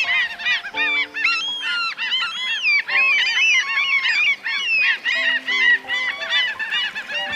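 Many birds calling at once, a dense run of short overlapping rising-and-falling calls, over background music with held low notes.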